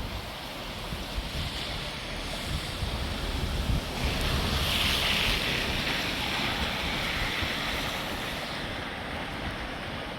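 A small stream in flood after heavy rain, its water rushing steadily, with wind noise on the microphone. The rushing gets louder about four seconds in and eases off again near the end.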